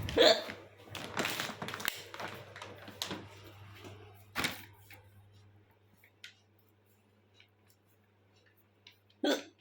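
A person hiccuping three times, a few seconds apart, with rustling and small clicks in between over a low steady hum.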